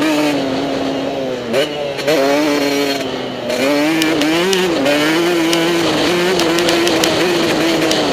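Motocross bike engine running hard at high revs. The revs drop and snap back up twice around one and a half to two seconds in, as the throttle is chopped and reopened, and rise and fall again around four and a half seconds. A few sharp clicks are heard in the second half.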